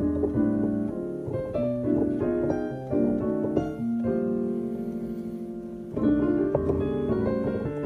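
Nord Stage 3 stage keyboard played with a piano sound: chords and quick runs, with a long held chord about four seconds in and a new chord struck about six seconds in.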